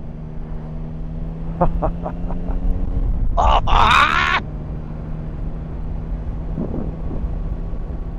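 Motorcycle engine running at a steady cruise with constant wind rumble, heard from the rider's onboard camera. A short burst of a rider's voice without clear words comes about three and a half seconds in.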